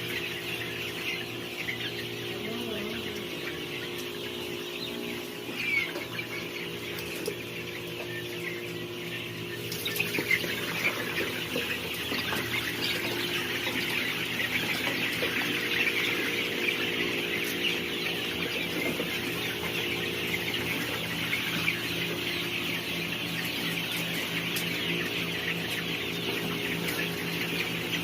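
A large flock of farmed chickens clucking and chirping all at once, a dense continuous chatter that gets busier and louder about ten seconds in, over a steady low hum.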